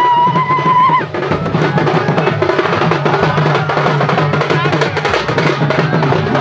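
Procession drums playing a fast, dense rhythm. A held high steady note sounds over them and stops suddenly about a second in.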